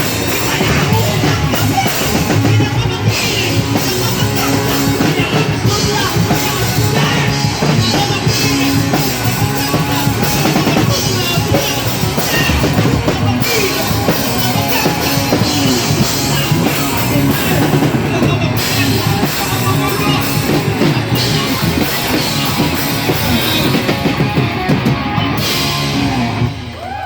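Rock band playing live, drum kit to the fore, with little singing. The music stops just before the end.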